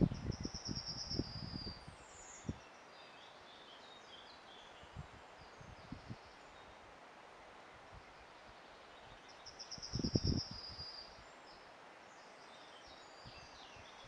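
A small songbird singing a short trill that falls slightly in pitch, heard twice about nine seconds apart, with faint chirps between. Soft rustling and knocks at the start and again around ten seconds in.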